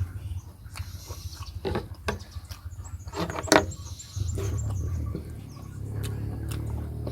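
A person eating: chewing with wet mouth smacks and a few sharp clicks, the loudest about three and a half seconds in, over a low steady hum.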